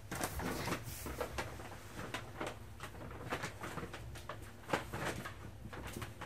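Six-week-old smooth collie puppies rooting about: irregular scuffs and clicks of paws and claws on the floor, paper grocery bags rustling and knocking, with one sharper knock past the middle.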